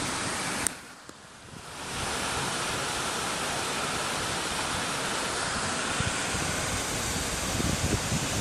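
Steady rushing of a waterfall pouring into a rock pool. The sound drops away suddenly for about a second near the start, then comes back.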